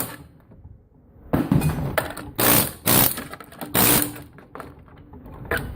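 Pneumatic air chisel hammering electronic components off a circuit board, in about four short rattling bursts with pauses between them.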